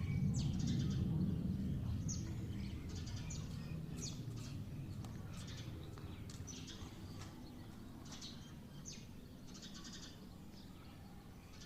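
Small birds chirping repeatedly in short, high calls, over a low rumble that fades away in the first few seconds.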